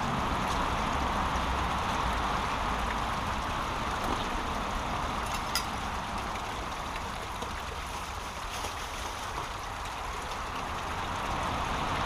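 Steady rush of a small brook's water running through a log-jammed, litter-blocked stretch, with a single sharp click about halfway through.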